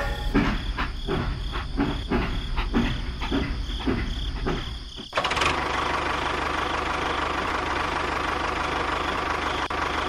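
Steam-locomotive chuffing, about three beats a second, that cuts off sharply about five seconds in and gives way to a steady engine running at idle.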